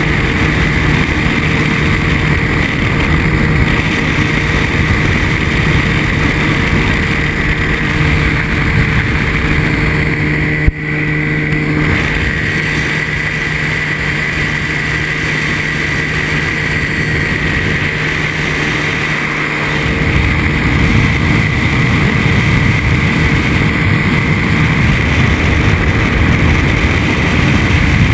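Ultralight trike's engine and propeller running steadily in flight, with wind rush over the open cockpit. There is one sharp click about eleven seconds in, and the low rumble grows heavier from about twenty seconds on.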